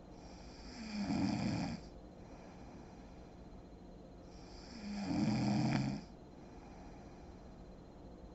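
A sleeping woman snoring: two snores about four seconds apart, one about a second in and one about five seconds in, each lasting just over a second.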